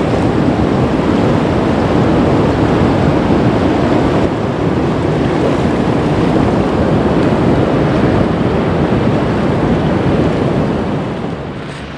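Loud, steady rush of the flood-swollen upper Danube in spate, fast muddy floodwater surging and churning past. It eases near the end.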